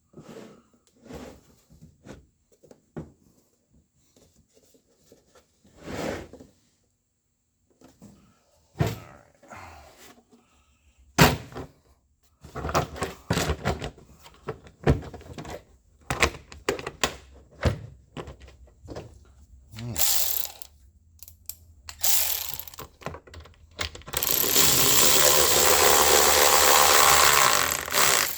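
Scattered knocks and clunks of heavy parts and packing being handled, with one sharp knock about eleven seconds in. Near the end a loud, steady mechanical whir runs for about four seconds, then stops.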